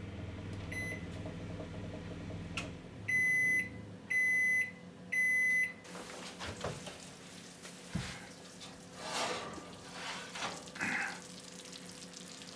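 Oven running with a steady hum that stops with a click, then its timer beeps three times, even half-second beeps a second apart, signalling that baking is done. Faint scattered knocks follow.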